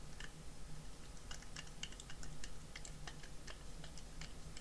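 Precision screwdriver turning a small M3 socket screw into a 3D-printed plastic bracket: a run of small, irregular clicks, several a second, starting about a second in.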